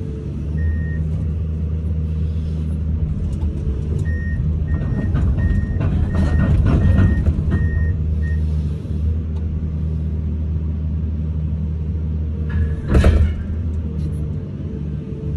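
Komatsu 210 hydraulic excavator's diesel engine running steadily under load, heard from inside the cab. From about four to eight seconds in, a beeping alarm sounds about twice a second. About thirteen seconds in there is one sharp, loud knock.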